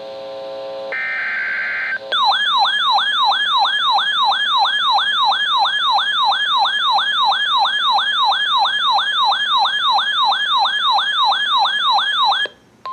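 The last digital data bursts of an Emergency Alert System SAME header, a harsh buzzing screech, for about two seconds. Then comes an electronic siren alert of rapid falling whoops, about three a second, which stops shortly before the end. This is the alarm announcing a severe thunderstorm warning on NOAA Weather Radio.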